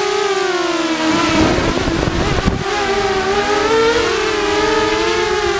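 ZMR250 quadcopter's brushless motors and propellers whining, several close tones rising and falling in pitch together as the throttle changes. A rush of noise sits under them for about a second and a half, starting about a second in.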